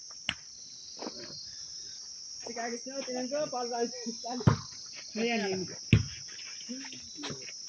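Steady high-pitched chirring of insects, with a few sharp clicks and a person's voice briefly in the middle.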